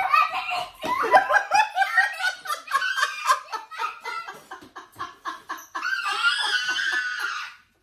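A young girl and a man laughing hard, a rapid run of short laughs ending in a long, high-pitched squeal near the end.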